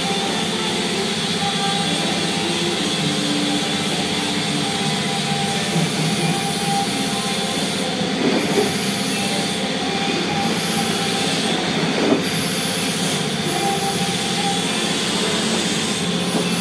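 Steady, loud mechanical drone with several held whining tones, typical of a workshop ventilation fan or machinery running continuously.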